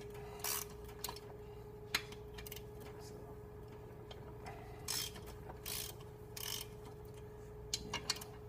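Ratchet wrench clicking in several short runs as bolts on a 1966 Triumph 500 cc engine's rocker boxes are loosened during a top-end teardown.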